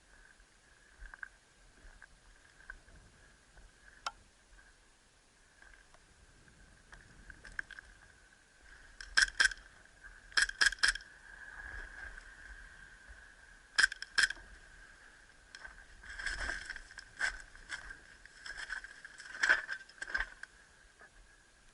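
Airsoft pistol firing: sharp pops in quick pairs and a triple, seven in all, starting about nine seconds in, over a faint steady high whine. Softer scuffs and rustling follow near the end.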